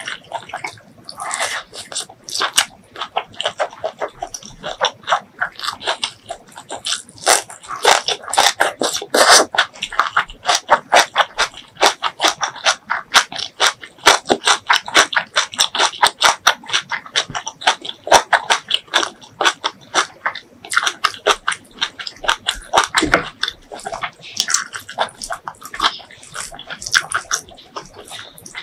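Close-miked eating sounds of beef tripe curry with rice: wet chewing and lip-smacking in fast runs of sharp clicks, with a few short pauses.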